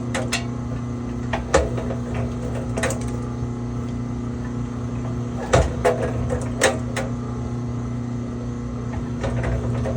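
A 1500-watt electric wire-stripping machine runs with a steady hum, broken by scattered sharp clicks and knocks from the scrap wire being handled and fed through it, several close together about halfway in.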